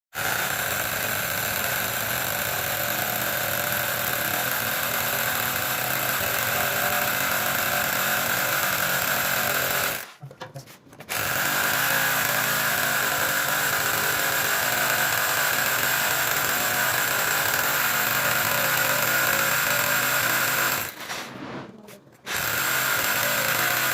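A power tool running steadily at speed, stopping briefly about ten seconds in and again near the end.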